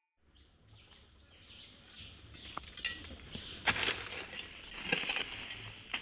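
A digging hoe chopping and scraping into soil and dry leaf litter, with two or three strokes about a second apart in the second half. Faint birds chirp before the strokes begin.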